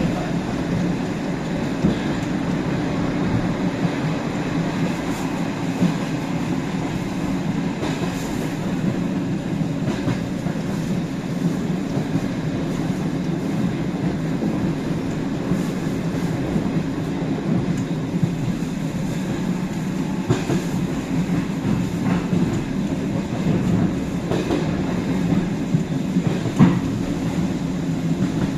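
Suburban electric train running along the line, heard from inside the carriage: a steady rumble with the wheels knocking over rail joints every few seconds, one sharper knock near the end.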